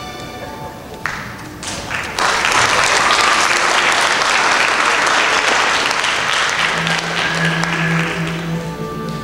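Theatre audience applauding, starting about a second in, swelling and then dying away near the end, over music playing.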